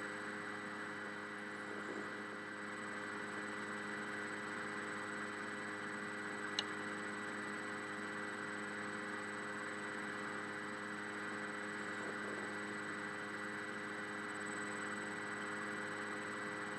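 Steady electrical hum with a faint hiss from a telephone line on a silent hold, with one faint click about six and a half seconds in.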